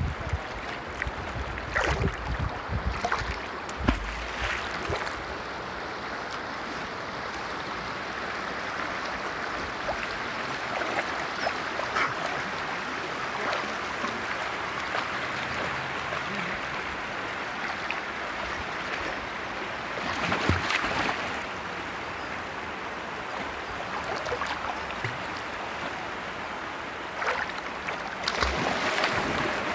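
River water flowing steadily, with splashes as a dog wades and swims through it. The splashing comes in clusters in the first few seconds, about two-thirds of the way through, and again near the end.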